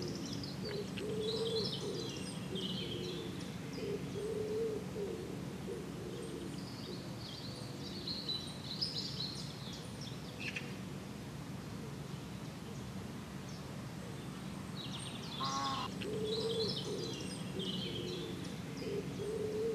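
Outdoor birdsong: small birds chirping and warbling in high phrases, with a pigeon cooing in low, repeated phrases, and one harsher call about three quarters of the way through.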